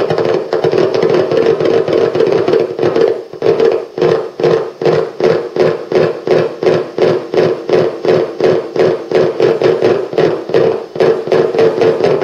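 Amplified music: a steady droning tone with an even knocking beat over it, about three strikes a second, which becomes sharper about three and a half seconds in.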